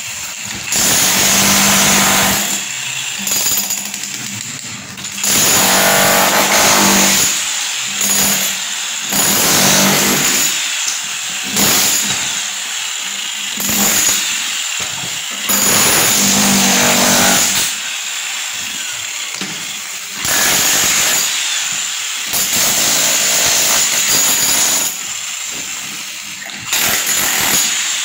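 A power tool run in short repeated bursts, about a dozen starts and stops of one to two seconds each.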